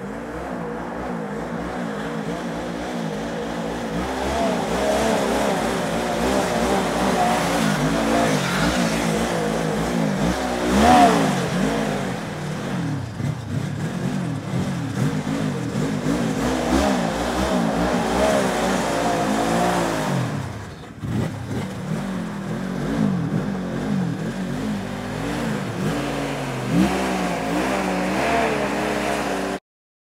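Snowmobile engine running as the machine rides across lake ice, its pitch rising and falling with the throttle. The sound stops abruptly near the end.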